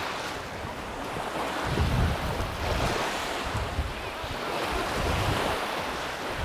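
Small waves washing up onto a sandy shore, with wind gusting on the microphone in low rumbles.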